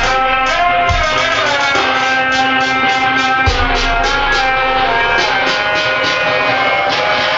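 Music with a fast, steady beat and a lead melody that bends in pitch.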